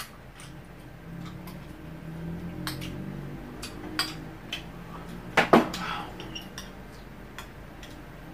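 Cutlery clinking and scraping against dishes during a meal, with scattered light clicks and a louder double clatter about five and a half seconds in.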